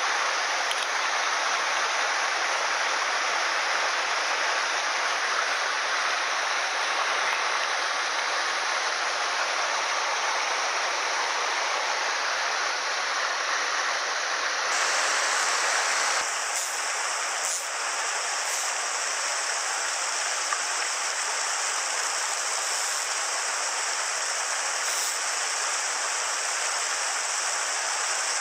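Mountain headwater stream rushing over rocks and small cascades: a steady, dense rush of flowing water, its tone changing abruptly about halfway through.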